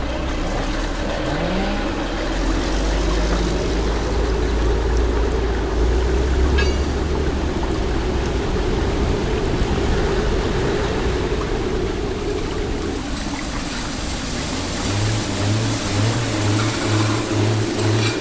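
Machinery sound effects: a steady low engine rumble under a constant hum. About three seconds before the end, a regular chugging of two to three beats a second comes in, like a diesel generator running.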